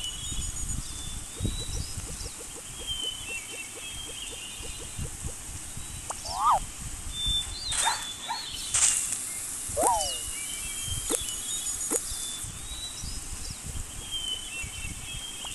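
Outdoor nature ambience of bird calls: high chirps repeating every few seconds and short quick up-and-down calls, over a low rumble. A quick run of ticks comes early, and two sharp hissing sounds come near the middle.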